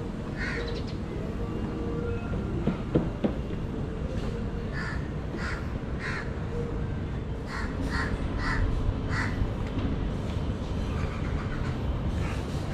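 A bird calling over and over in short calls, most of them between about five and nine seconds in, over a steady background rumble; two sharp knocks about three seconds in.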